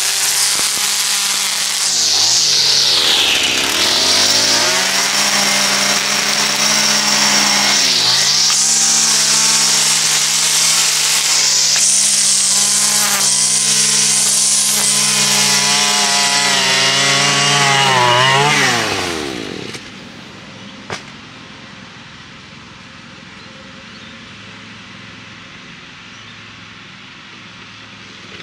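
Petrol string trimmer running at high revs, its nylon line cutting a grass edge along a concrete kerb. The engine pitch sags and recovers twice, then winds down and drops away about two-thirds of the way through, leaving only a much quieter steady hum.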